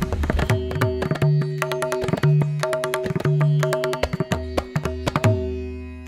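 Background music with rapid drum strokes and deep held drum notes over a steady drone, fading near the end.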